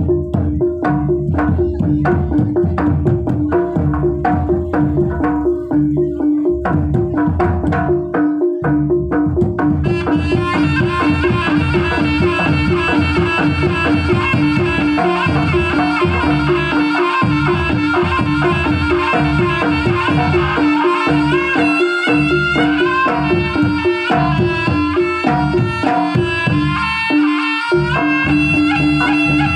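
Jaranan gamelan music: a kendang barrel drum and small kettle gongs keep up a fast, steady beat with the gongs' ringing tone, and about ten seconds in a reed pipe joins, playing a melody over the percussion.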